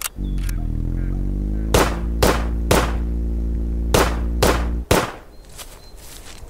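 Motorcycle engine sound running steadily under a string of about seven gunshots at irregular intervals; the engine cuts off abruptly with the last shot, a little before five seconds in.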